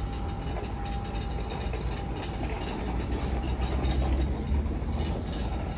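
Steady low rumble and hiss of outdoor urban background noise, with a faint steady hum that fades out about a second in.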